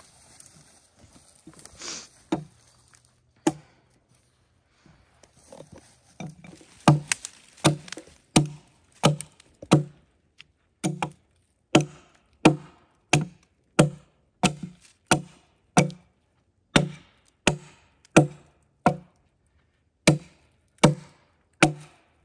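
Heavy blows chopping into wood: a few scattered knocks, then a steady run of strikes about one and a half a second, pausing briefly now and then.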